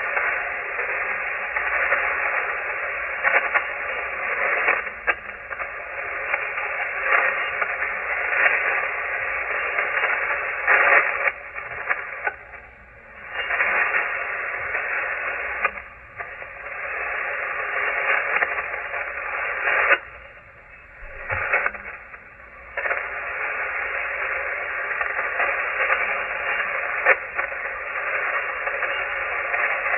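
Shortwave receiver on the 40-meter amateur band giving out empty-channel static hiss, cut off at the narrow single-sideband audio bandwidth, with a faint steady whistle underneath. Twice near the middle the hiss sinks away for a second or two, then comes back.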